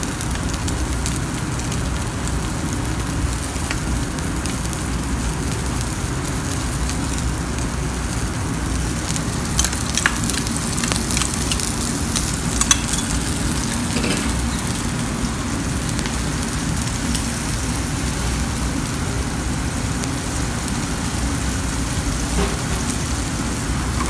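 Steady frying sizzle of a NY strip steak searing in hot canola oil in a skillet, with a mushroom brandy sauce heating in a second pan. A few sharp clicks come about ten to thirteen seconds in.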